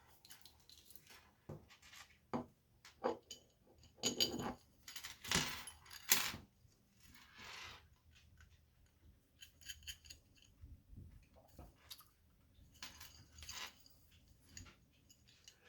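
Solid brass plumber's chain and small brass hanger hardware handled and clinking: scattered light clicks and short metallic rattles at irregular intervals, the loudest about four to six seconds in.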